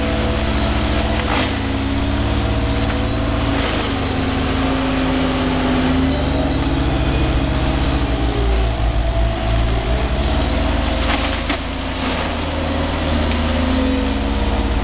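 Blackberry mulcher's engine running steadily under load, its pitch dipping and recovering about nine seconds in, with scattered cracking and splintering as woody blackberry brambles are shredded.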